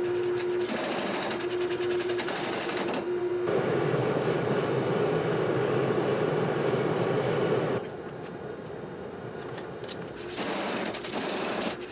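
Forging-shop machine running with fast, evenly repeated mechanical strokes. About a third of the way in it changes to a denser steady running noise. A little past halfway it drops to a quieter stretch with a few light clicks, and the strokes pick up again near the end.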